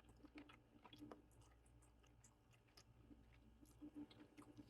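Faint chewing of food close to the microphone, with soft, irregular mouth clicks and smacks.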